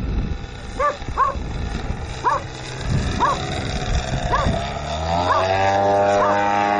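A dog barking in short calls about once a second. In the second half the engine of a Katana radio-controlled aerobatic model plane comes in, rising in pitch and getting louder.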